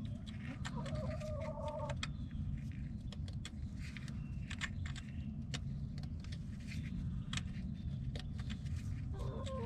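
Light metallic clicks and ticks of an M12 x 1.25 hand thread tap being worked into a flywheel bolt hole in a tractor crankshaft, over a steady low rumble.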